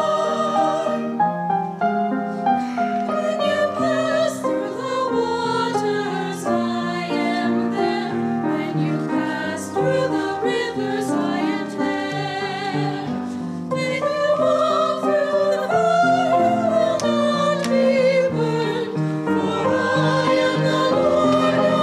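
Choir singing a slow piece with piano accompaniment, the voices held with vibrato over the piano's notes.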